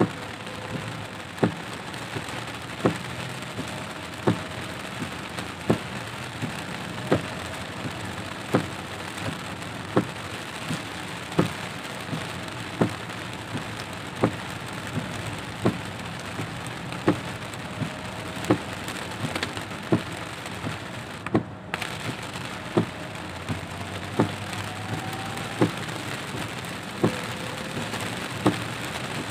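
Heavy rain pattering on a car's windshield and roof, heard from inside the cabin. A sharp knock about every second and a half comes from the windshield wipers at the end of each sweep.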